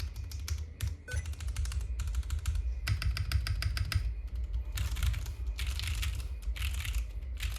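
Lubed Cherry MX2A Brown tactile switches on a QK60 keyboard with an aluminium top, carbon-fibre plate and foam, clacking in quick bursts of rapid, evenly spaced keystrokes, as when backspace is spammed. There are about eight short bursts with brief pauses between them.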